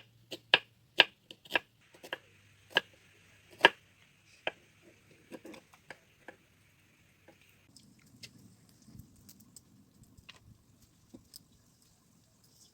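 Kitchen work: a run of sharp, irregular knocks and clicks, a few of them loud, over a faint steady hum. After about five seconds they thin out to faint, scattered handling noises.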